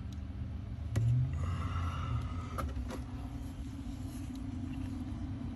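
Steady low engine rumble of a nearby idling vehicle, with a sharp click about a second in and a brief pitched tone a little later.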